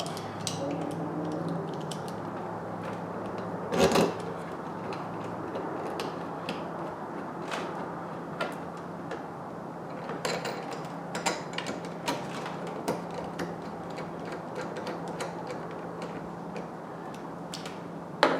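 Scattered small clicks and knocks of hand tools and plastic parts as an engine cover is screwed down, with one louder knock about four seconds in. A steady low hum runs underneath.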